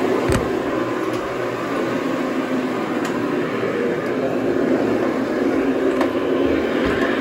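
Carpet-cleaning machine running steadily, a constant mechanical drone with a few light clicks.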